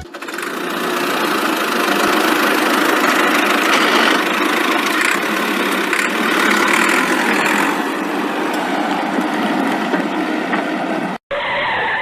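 A vehicle engine running steadily, a noisy rumble without deep bass. It starts abruptly and cuts off suddenly about a second before the end.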